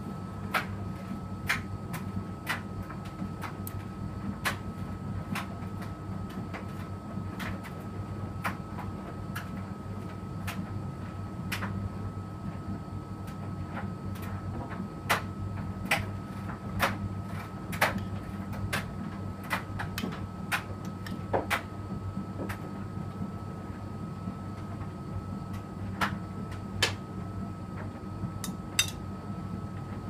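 Electrolux front-loading washing machine turning its drum during a 40°C cotton wash: a steady low hum and a thin steady whine from the motor, with irregular sharp clicks and knocks, roughly one a second, as the load tumbles against the drum.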